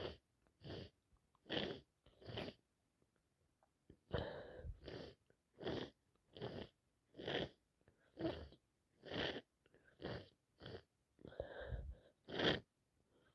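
A person with a head cold breathing and sniffing through a blocked nose: a steady run of short, sharp breaths, a little more than one a second, with a couple of longer ones.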